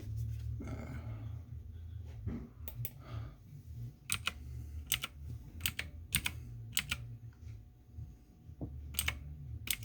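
Computer keyboard typing: separate keystrokes, loosely spaced, several about a third of a second apart in the middle, over a low steady hum.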